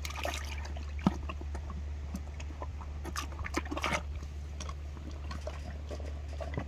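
Arabian mare slurping soaked alfalfa pellets from a tub of water: wet sloshing and lip splashes in irregular bursts, most around the middle, with one sharp knock about a second in over a steady low hum.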